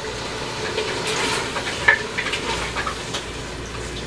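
Mutton sizzling in oil in an aluminium pressure cooker as it is fried on high heat and stirred with a wooden spoon, a steady crackle with a few light ticks.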